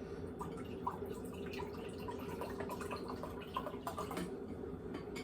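Faint, scattered drips of liquid, small irregular plinks over a steady low hum.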